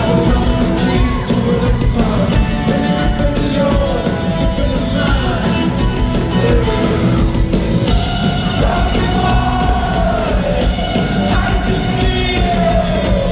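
Live rock band playing loud through a concert PA in a large hall, with electric guitars and drums under a singer's shouted, sung vocal line.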